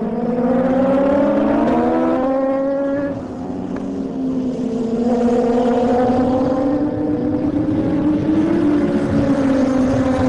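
Superbike racing motorcycle engines at high revs as a small pack accelerates out of the corners. Their pitch climbs, drops briefly as they change gear about two and three seconds in, then climbs again.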